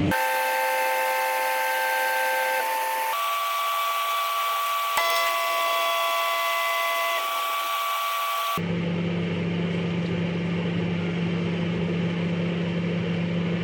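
A high whine made of several steady tones, which shift about three seconds in, with a click about five seconds in; it cuts off suddenly after about eight and a half seconds. A microwave oven's low, steady hum then runs.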